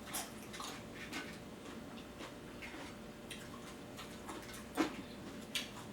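Person chewing nachos made with crunchy tortilla chips, close to the microphone: soft, irregular crunches and mouth clicks, with one louder crunch near the end.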